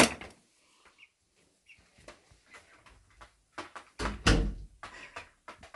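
A sharp knock at the start, then a dull, deep thump about four seconds in, with a few lighter taps around it.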